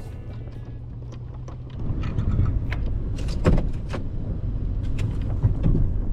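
Snow-plow truck running, a steady low hum at first, then louder from about two seconds in with rumbling, scraping and scattered knocks and clatters as it works.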